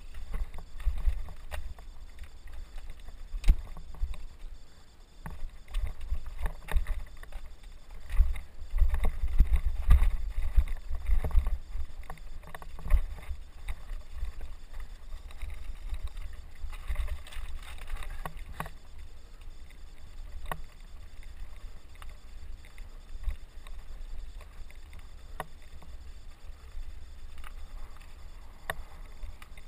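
Mountain bike rolling over a rocky scree singletrail: knocks and rattles from the tyres and frame hitting stones over a low rumble, heaviest about eight to twelve seconds in and calmer toward the end.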